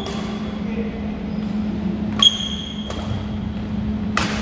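Badminton rackets striking a shuttlecock during a rally: sharp string pings with a brief high ring, the loudest about halfway through and another near the end, over a steady low hum.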